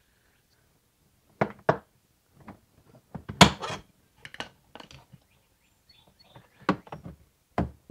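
Short, scattered clicks and knocks, the loudest about three and a half seconds in, as a plastic drawer slider rail is wiggled and pried out of the retaining tabs inside a Milwaukee Packout drawer box.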